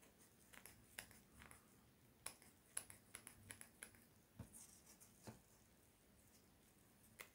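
Near silence: quiet room tone with about ten faint, scattered clicks.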